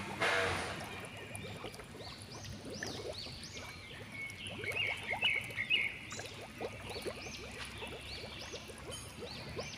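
Outdoor garden ambience of many short, repeated high chirping animal calls, opening with a brief loud rush of noise.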